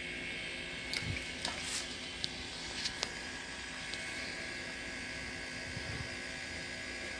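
Two refrigerator compressors running steadily as the pump of a homemade air compressor: an even mechanical drone with a faint high whine. A few short clicks come in the first three seconds.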